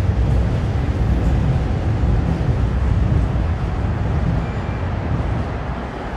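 Docklands Light Railway train running past, a steady low rumble that eases off near the end as it moves away.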